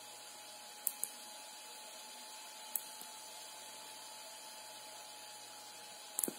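Faint steady hum of the small cooling fan on a USB electronic load, with a few light clicks as the load's current adjuster is handled: a pair about a second in, one near three seconds and a quick cluster near the end.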